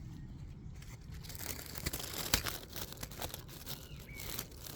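Rustling and crackling of leaves and twigs as a phone is pushed into the vegetation around a nest, with irregular clicks and snaps of handling; the sharpest click comes a little over two seconds in.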